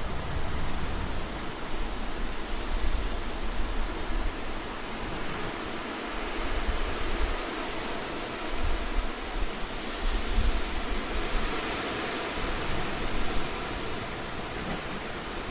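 Wind sound effect: a continuous rushing hiss with low rumbling gusts. The hiss swells in the middle and eases near the end.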